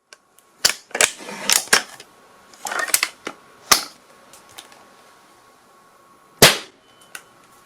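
Gunshot sound effects: an irregular run of about ten sharp shots in the first four seconds, then a single loudest shot about six and a half seconds in and a fainter one just after.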